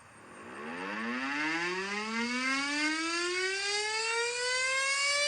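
Outdoor warning siren winding up from a stop. Its wail starts about half a second in and climbs steadily with a stack of overtones, still rising slowly near the end.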